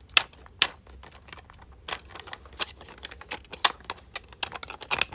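Plastic buttons on an extra-large 3D-printed 12-in-1 fidget being pressed repeatedly: a couple of sharp clicks in the first second, then quicker, softer clicking that grows denser near the end. Both buttons on this size are of the quiet kind.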